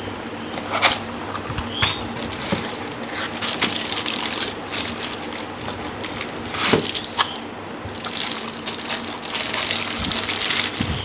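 Plastic packaging wrap crinkling and cardboard rustling as packed parts are handled and pulled from a box, with scattered crackles and a few louder clicks.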